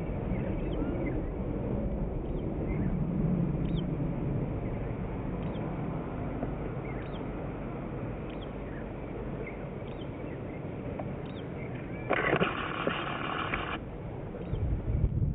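Outdoor ambience: a steady low rumble with wind on the microphone, and small birds chirping briefly every second or two. About twelve seconds in there is a short burst of hiss, and near the end gusts of wind rumble on the microphone.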